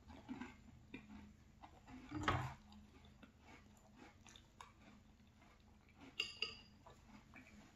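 Faint chewing and a metal spoon scraping and clinking against a ceramic bowl of yogurt, with a louder knock about two seconds in and two short ringing clinks near the end.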